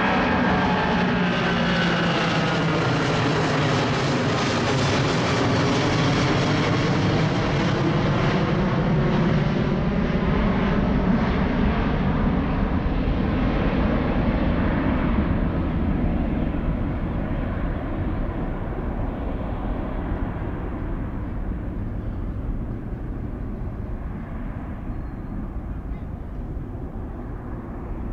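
Twin-engine Boeing 777-200ER jet, Rolls-Royce Trent 892 engines, climbing out overhead: a loud, steady jet engine rush with a slowly sweeping, phasing quality. It grows duller, and from about halfway through steadily fainter, as the airliner flies away.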